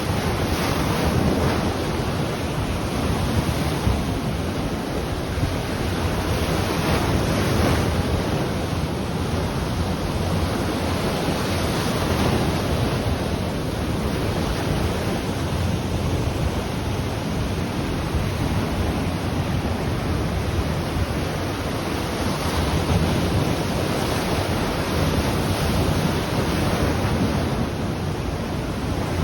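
Ocean surf washing onto the shore in a steady rush that swells and eases as waves break, with wind buffeting the microphone.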